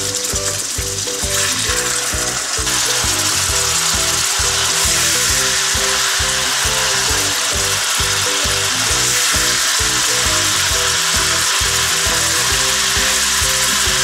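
Minced-meat kebabs frying in hot oil in a karahi, a steady loud sizzle that grows stronger about two and a half seconds in.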